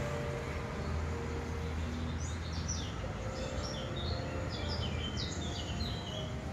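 Steady low rumble of outdoor ambient noise, with small birds chirping in a quick run of short high notes from about two seconds in until near the end.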